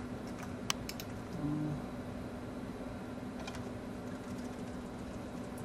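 A few scattered computer keyboard key clicks over a steady low hum.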